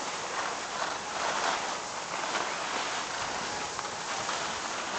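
Skis sliding over packed snow: a steady scraping rush that swells and eases every second or so.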